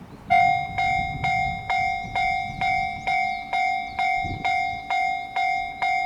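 Japanese railway level-crossing warning bell starting up suddenly and ringing evenly about twice a second, a pitched clang on each stroke: the crossing signal warning that a train is approaching.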